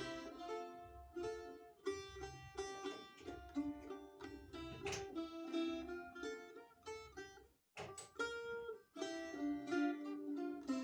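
Balalaika being played, a folk tune of quick plucked notes, with a brief break about eight seconds in before the playing picks up again.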